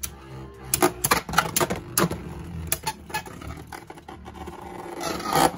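Two Beyblade spinning tops, a bootleg Xiphoid Xcalibur and a Hasbro Fierce Achilles, spinning and clashing in a plastic stadium. Irregular sharp clacks sound over a spinning whir, with a louder stretch about five seconds in.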